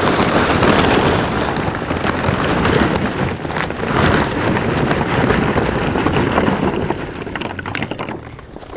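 Lump charcoal being dumped out of its bag, a dense continuous clatter of chunks tumbling and knocking together that eases off near the end.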